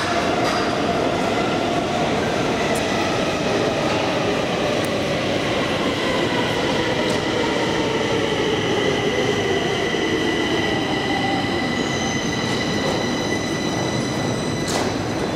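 Stockholm metro train running through the station, a loud steady rumble with a whine that falls slowly in pitch over the first ten seconds. High, steady squealing tones from the wheels join in and grow near the end.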